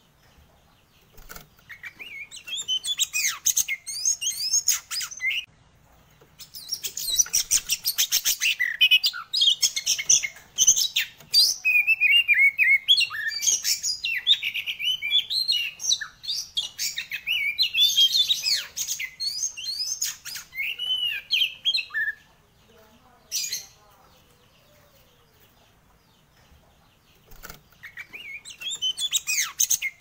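Caged oriental magpie-robin (kacer) singing very loudly: long runs of rapid, varied whistles and chattering notes. It breaks off briefly early on, falls mostly silent for several seconds about two-thirds of the way through apart from one short note, then starts singing again near the end.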